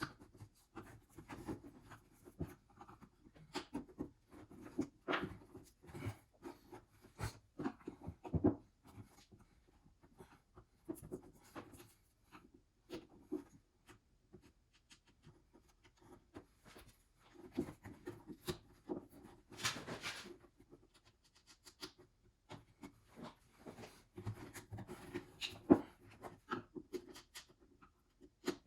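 Irregular scraping, rubbing and clicking of hand work on a Gold Cube's plastic sluice tray as the stapled-in matting is pried and pulled out, with a longer scrape about twenty seconds in.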